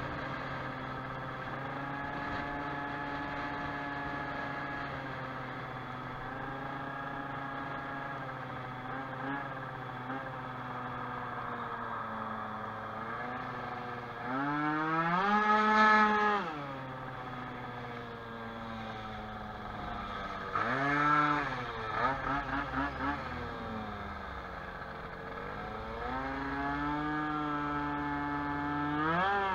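Tuned two-stroke scooter engine with a Stage6 Racing high-end kit, heard on board while riding, running a bit rich. It holds a steady note, revs up hard and falls back about halfway through, gives a shorter rev and a few quick throttle blips a little later, and climbs again near the end.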